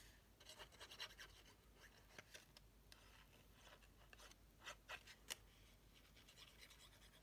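Very faint scratching and rubbing of cardstock being handled while the tip of a Tombow liquid glue bottle is run along the paper flaps, with a few slightly louder short scratches here and there.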